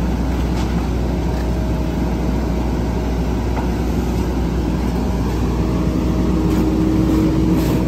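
Old Mack rear-loader garbage truck's diesel engine running steadily at idle. About five and a half seconds in, a steady higher hum joins it and the sound grows a little louder.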